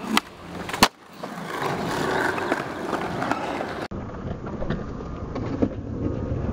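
Skateboard on concrete: a single sharp clack of the board about a second in, then the wheels rolling. After an abrupt cut, a steadier outdoor noise with faint ticks.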